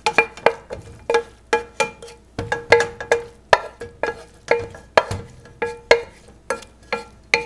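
A cooking utensil knocking against a metal pan about three times a second while sautéed leeks and onions are scraped into a stock pot; each knock rings briefly at the same pitch.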